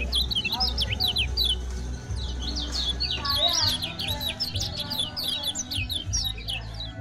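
Kecial kuning white-eye song: a fast run of high, short chirps and sweeps, many a second, with no breaks. A steady low hum lies underneath.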